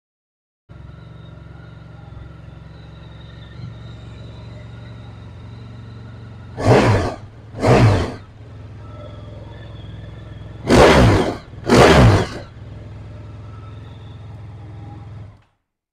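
Honda VFR1200X Crosstourer's V4 engine, fitted with a Leo Vince aftermarket exhaust, idling steadily and revved in four quick throttle blips, two pairs about a second apart. The engine sound cuts off near the end.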